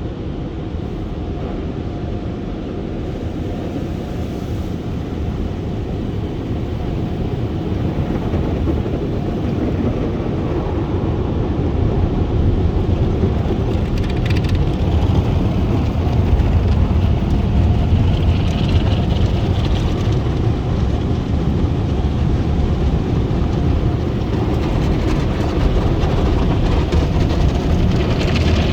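Automatic tunnel car wash running around a car: a steady low rumble with water spray hissing against the car, slowly growing louder.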